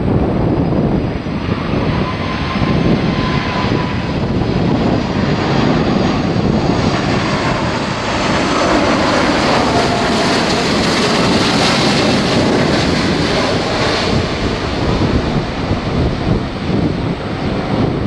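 Airbus A330 twin-jet airliner on final approach, its engine noise passing close and growing brighter and louder to a peak about two-thirds of the way in.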